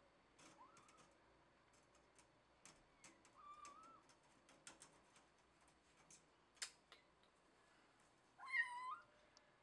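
A kitten meowing a few times, faint short high-pitched meows, then a louder meow near the end. Scattered faint clicks between the calls, one sharper click a little past two-thirds of the way through.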